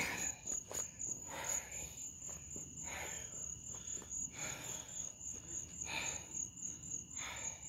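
Crickets chirping in a steady, evenly pulsing high trill, with a few faint soft scuffs now and then.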